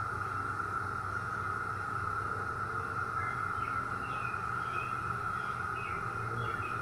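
A chorus of periodical cicadas, droning steadily on one high pitch. A few short high chirps come in about halfway through.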